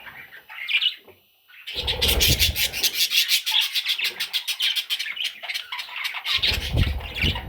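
Budgie chicks giving rapid, raspy begging calls that start up about two seconds in and carry on without a break. Low rubbing and bumping is heard twice under the calls.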